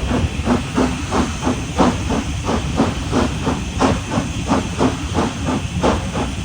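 Schools class 4-4-0 steam locomotive 'Repton' under steam: a steady, even beat of exhaust chuffs, about three a second, over a constant hiss of steam.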